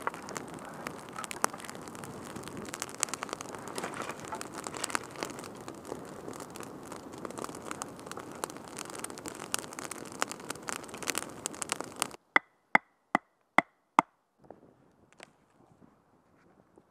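Campfire of dry sticks and brush burning, with a dense run of crackles and pops. About twelve seconds in, it cuts to five sharp knocks, each with a short ring, about two and a half a second, as a knife is batoned through a piece of firewood to split kindling.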